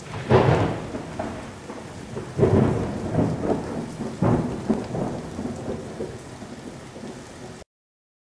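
Thunderstorm: three rolls of thunder about two seconds apart, each starting with a crack and rumbling away, over steady rain. It cuts off abruptly near the end.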